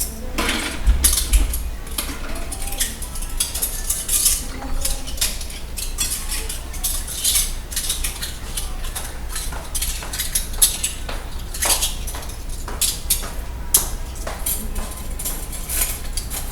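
Dishes and cutlery being washed by hand: irregular clinks and clatters of plates, utensils and bowls knocking together throughout.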